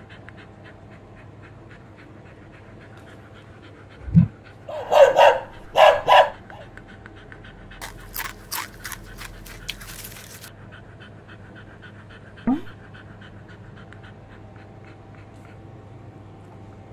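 Dog panting in a quick, even rhythm, with two short barks about five and six seconds in and a brief run of clicks a little later.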